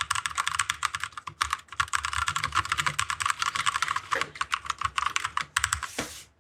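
Keys of a Glorious GMMK mechanical keyboard with Kailh Speed Silver linear switches being pressed rapidly in quick, dense runs, as in gaming-style WASD tapping. The clicking stops shortly before the end, and a short hiss follows.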